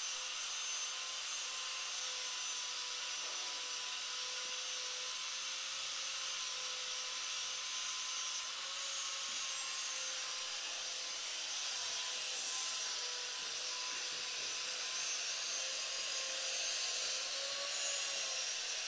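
Steady hiss with a faint, slightly wavering hum tone beneath it.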